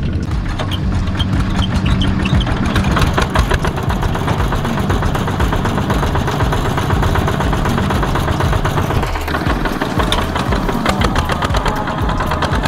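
Single-cylinder diesel engines of two-wheel tractors (power tillers) running as they pull trailers, with a fast, even beat of firing strokes.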